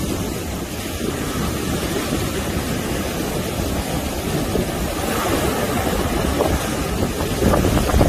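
Heavy sea surf breaking on a sandy beach: a continuous rush and rumble of waves and churning foam, growing louder near the end as bigger waves break.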